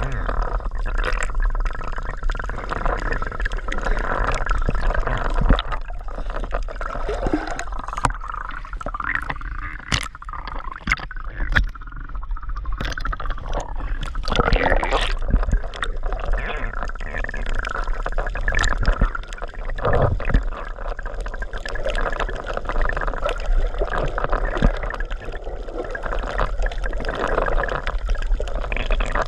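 Water sloshing and gurgling, with scattered splashes and clicks.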